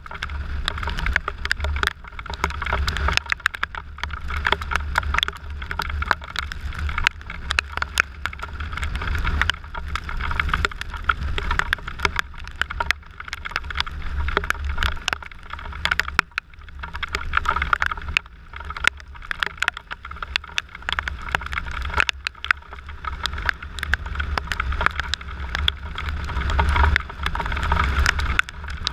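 Riding in the rain: wind rushing and buffeting over the camera microphone of a moving motorcycle with a steady low rumble, and many small ticks of raindrops hitting the camera.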